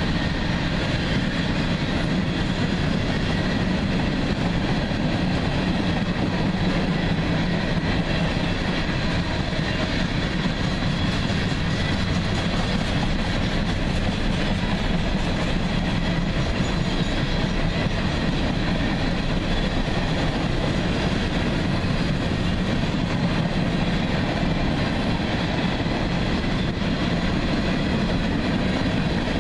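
Covered hopper cars of a grain train rolling past: a steady noise of steel wheels running on the rails.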